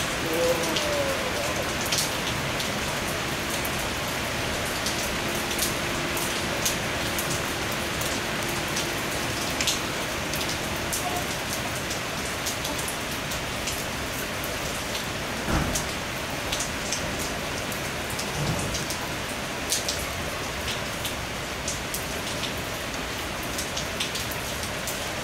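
Heavy thunderstorm rain falling steadily, with many sharp clicks of drops splashing on nearby surfaces.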